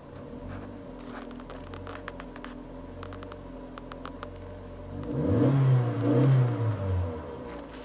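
Opel Corsa C 1.2 16v four-cylinder petrol engine, warm, idling steadily, then revved twice in quick succession to around 4,000 rpm about five seconds in before dropping back to idle.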